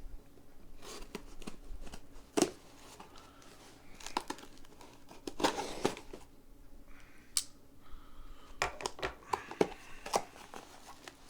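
Packaging handled by hand: crinkling and rustling with scattered sharp clicks and taps.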